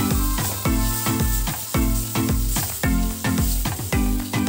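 Background music with a steady beat over a spice paste of ginger, garlic, onion and ground spices sizzling in oil in a steel kadai while a spatula stirs it.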